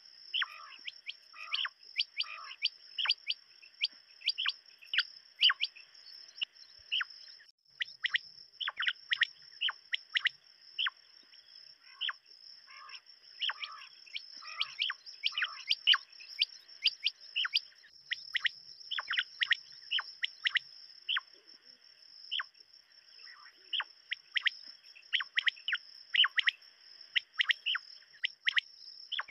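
Common quail calling over and over: quick runs of short, sharp, high clipped notes, many led by soft low notes, with a steady high-pitched whine behind them.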